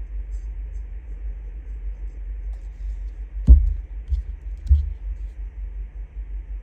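A plastic glue bottle set down on a craft table with a sharp knock about halfway through, followed by two lighter knocks as paper and lace are handled, over a steady low hum.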